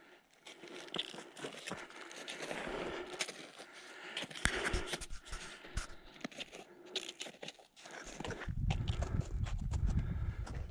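Footsteps of a hiker in crampons on snow: irregular crunching steps with sharp clicks. A low rumbling noise joins about eight seconds in.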